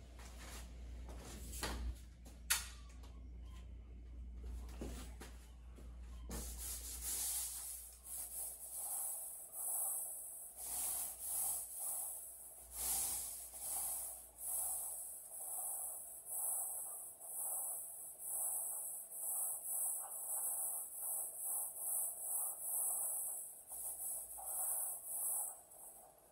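18-inch paint roller on an extension pole rolling paint onto a wall, a wet rubbing swish with each stroke. The strokes settle into a steady rhythm, somewhat more than one a second.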